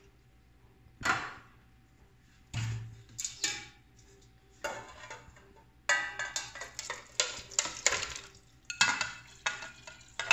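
Bowls, strainer and utensils knocking and clattering as grated potato is strained out of its cold soaking water. A few separate knocks come first, then from about six seconds in a busy stretch of clinking and scraping.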